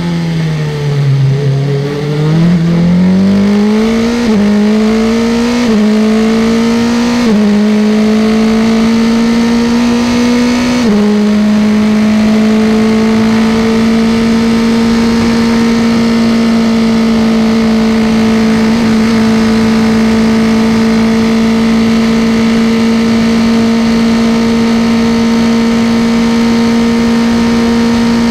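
Formula 3 single-seater's engine heard onboard. Its pitch falls as the car slows for a corner, then it accelerates hard through four upshifts, each a short drop in pitch, about 4, 6, 7 and 11 seconds in. After that it holds a steady high note at full throttle in top gear.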